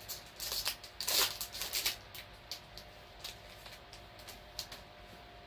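A baseball card pack being torn open and its wrapper crinkled, in a dense burst of crackles over the first two seconds, then scattered rustles and clicks as the cards are handled. A faint steady tone sits underneath.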